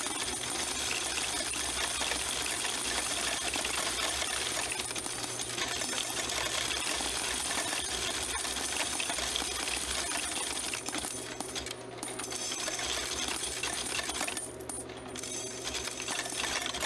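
Quarters clattering through a Cassida coin counter-sorter as they are swept by hand from its hopper into the spinning sorting disc: a dense, continuous rattle of coins. It thins out twice in the last few seconds as the hopper runs empty.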